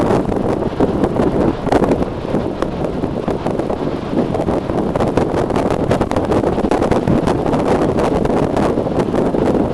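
Strong wind buffeting the microphone, a loud steady rushing with constant crackling gusts, over the roar of heavy storm surf breaking.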